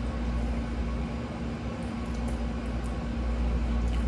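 Close-up chewing with a few faint soft mouth clicks, over a steady low hum that is the loudest thing heard.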